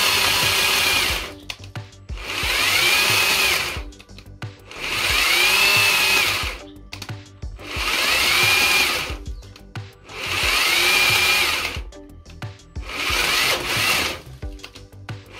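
Cordless battery chainsaw running in six short bursts of about two seconds, each a motor whine that rises as it spins up and falls as it runs down. The chain keeps stopping by itself, which the owner puts down to the saw's automatic stop and a battery that is not fully charged.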